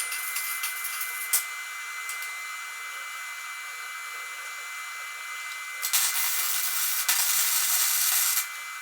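Electric welding arc crackling on steel tubing: a steady hiss that grows louder for about two and a half seconds near the end, with a single click about a second and a half in.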